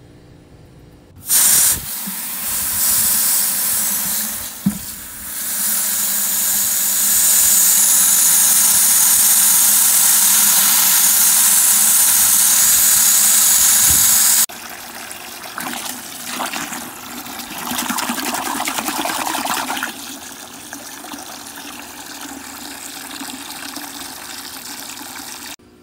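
Water pouring into a 5-gallon bucket, filling it. The gushing is loud and steady, cuts off sharply about halfway through, then goes on as a quieter, uneven rush.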